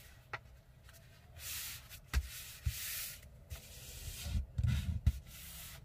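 A sheet of copy paper being folded and creased by hand on a tabletop: the paper slides and rustles in a few short stretches, with a few sharp taps and, near the end, soft thumps as the hands press it flat.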